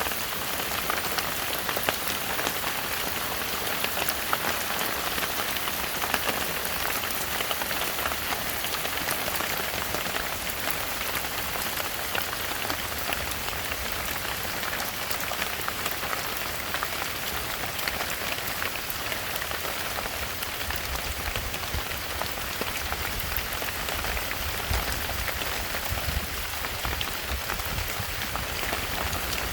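Heavy rain falling steadily in a forest, a dense hiss made of countless drop impacts. A low rumble comes in underneath about two-thirds of the way through.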